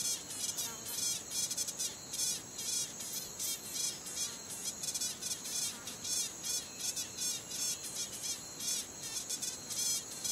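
Insect calling in rapid high-pitched buzzing pulses, several chirps a second in uneven groups, over a steady thin high whine.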